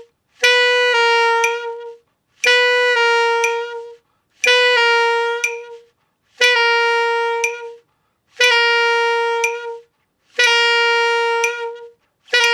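Saxophone playing a slow grace-note exercise: about every two seconds a tongued G sharp slides down a half step into a held G. It is heard six times, with a seventh beginning near the end.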